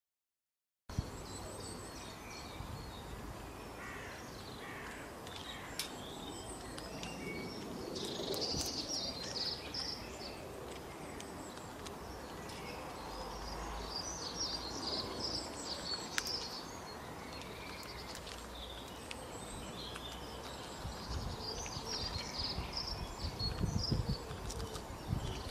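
Outdoor ambience of small birds singing: several bursts of high chirping and twittering over a steady background hiss, with a few low rustles near the end. Silent for the first second.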